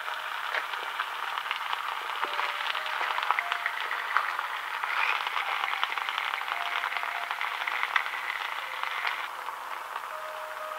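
Fried eggs and ham sizzling in a frying pan over low heat, a steady dense crackle of small pops.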